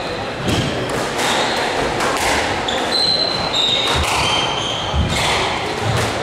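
Squash rally: a string of sharp hits, roughly once a second, as the rubber ball is struck by rackets and smacks off the walls, with short high squeaks of shoes on the wooden court floor between them.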